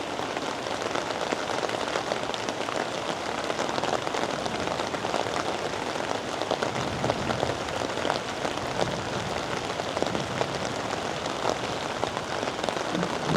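Steady rain falling, with many small drops pattering on leaves and surfaces.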